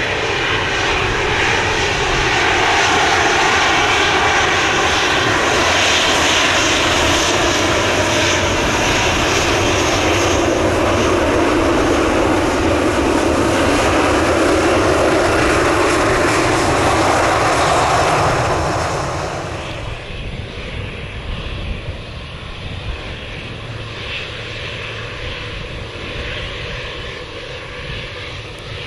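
Jet airliner engines running loud and steady, then dropping fairly quickly to a quieter steady rumble about two-thirds of the way through.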